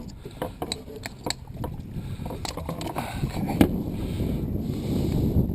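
Low wind rumble on the microphone with scattered sharp clicks and knocks of handling, one louder knock about three and a half seconds in.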